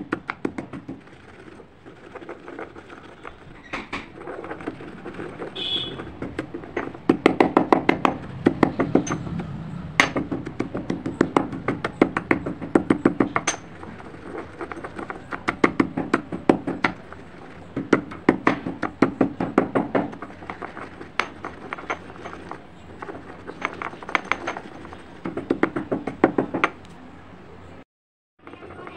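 Stone pestle grinding crushed slate pencil powder in a green stone mortar: gritty crunching and scraping in repeated strokes about every second or two, with clicks of stone on stone.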